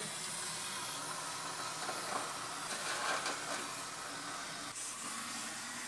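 Aerosol can of cavity wax spraying through a long extension wand into a car's rocker panel: a steady hiss.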